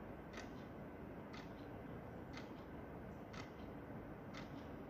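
Quartz wall clock ticking once a second, five ticks, each a sharp click with a fainter second click just after it, over a low steady hiss.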